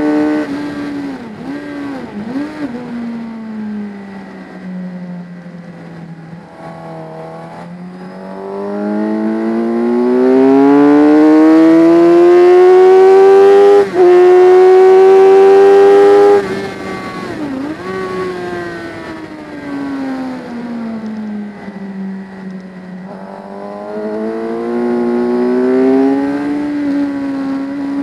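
Racing motorcycle engine heard from an onboard camera, pulling hard up through the revs out of a corner and getting much louder, with a brief cut for a gear change about halfway through. A couple of seconds later the throttle shuts, with quick downshift blips into the next corner, and the engine then climbs in revs again near the end, with wind rushing over the microphone at speed.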